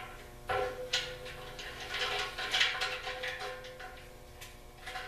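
Metal clicks, taps and scrapes as the air compressor's handle is lined up and its Allen screws are run in with a hex bit: irregular sharp ticks, busiest in the middle, over a faint steady hum.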